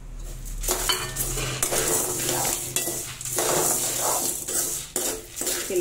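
Metal spoon stirring and scraping dry-roasted black urad dal, dried red chillies and curry leaves around an aluminium kadai, a steady run of irregular scraping and rattling strokes that starts about a second in.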